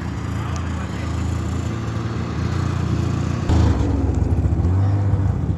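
Engine of a car stuck in snow, running under load as it tries to drive free; it revs up sharply and grows louder about three and a half seconds in.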